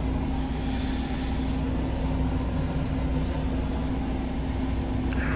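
Truck's diesel engine running steadily, heard inside the cab, with the windscreen blower fan on and adding a steady hiss.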